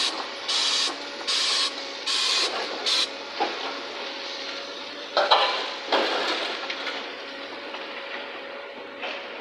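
SK450 hydraulic excavator working a demolition jaw. A run of short hissing pulses about every 0.7 s stops about three seconds in, then the machine runs on with a steady hum and a few sharp knocks of metal and concrete.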